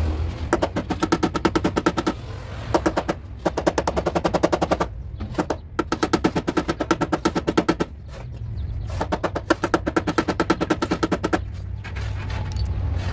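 A handheld percussive power tool hammering rapidly on the car's steel lower door sill, about a dozen strikes a second, in five bursts with short pauses between them.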